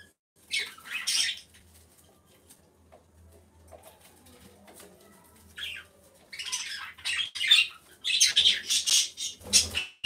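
Pigeon shifting and turning on its straw-lined clay nest bowl, its feathers and wings rustling against the straw in short bursts. There is one burst about half a second in, and a run of bursts from about five and a half seconds to near the end.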